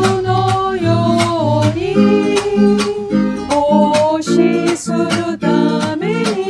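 Song with strummed acoustic guitar and a held melody line above it that glides from note to note.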